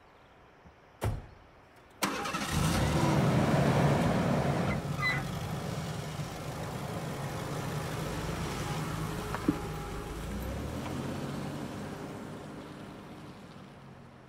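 A thump about a second in, then a Ford Bronco II's engine starts about two seconds in, revs up and runs steadily as the truck drives off, fading away near the end.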